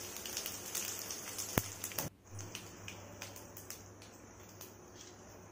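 Oil sizzling and crackling in a stainless-steel kadai as mustard seeds, urad dal, chana dal and crushed garlic fry for a South Indian tempering. A sharp pop comes about a second and a half in, and the sizzle turns quieter just after two seconds.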